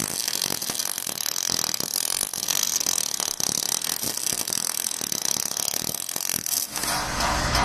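Wire-feed gas-shielded arc welding: the arc crackles and sputters steadily as the welder weaves a finishing pass on steel plate. Near the end the crackle gives way to a steadier hum.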